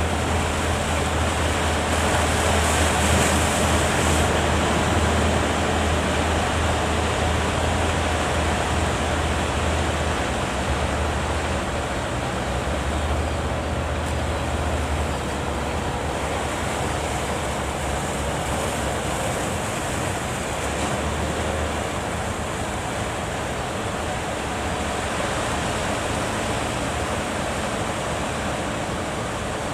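Surf at a river mouth: a steady rush of breaking waves. A low steady hum underlies it through roughly the first half and then fades.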